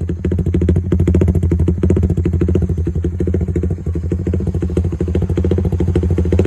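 Suzuki Raider Fi 150 motorcycle's single-cylinder four-stroke engine running steadily through an aftermarket JEC Speed exhaust pipe, giving a rapid, even stream of exhaust pulses.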